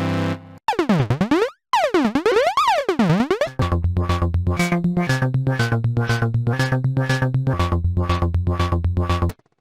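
Analog-style synthesizer from a Roland System-100 software emulation playing demo patches. First a pulsing tone sweeps down and up in pitch several times, then a fast sequenced bass line of short repeating notes steps between pitches and cuts off abruptly near the end.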